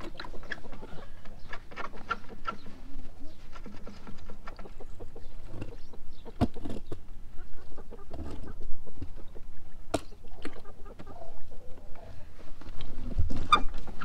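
Chickens clucking, with scattered clicks and knocks, including sharp knocks about six and a half seconds in and again about ten seconds in.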